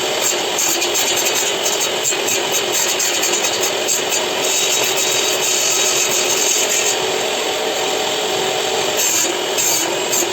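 Bosch GTS 10J table saw running steadily, its blade cutting through wood with a continuous whine.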